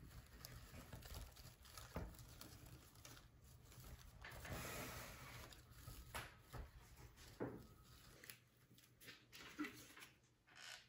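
Faint rustling and crinkling of a burlap ribbon bow and artificial greenery being handled and fluffed on a grapevine wreath, with a few light clicks and taps.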